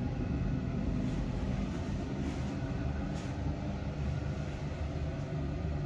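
Steady low background rumble, with a couple of faint clicks about two and three seconds in.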